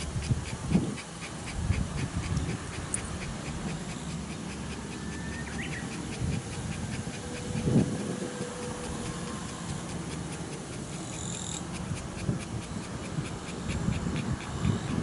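Shiba Inu panting rapidly and evenly, about four breaths a second, with soft rustling and bumps from being held and handled.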